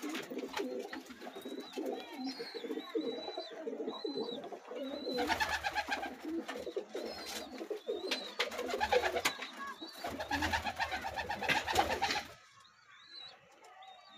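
Many domestic pigeons cooing together in a small loft, with louder noisy bursts now and then and thin high chirps over the cooing. The sound drops away abruptly about twelve seconds in.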